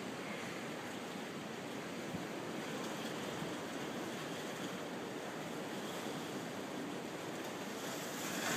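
Ocean surf breaking and washing in, a steady rush that swells a little louder near the end.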